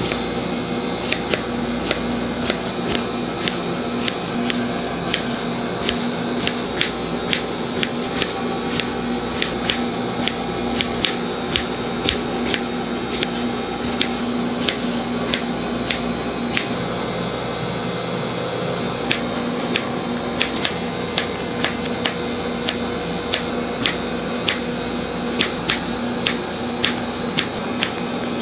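Kitchen knife slicing fresh strawberries on a cutting board, the blade tapping the board about twice a second, over a steady mechanical hum.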